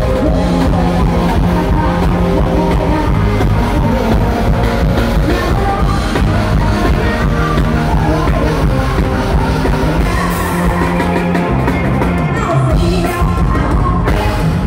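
Live Thai luk thung band music played loud, with drum kit, guitar and a singer.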